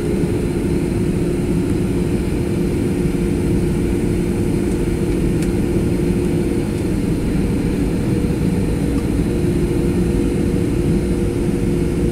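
Boeing 737 jet engines and airflow heard inside the cabin from a seat beside the engine: a steady roar with a constant hum underneath.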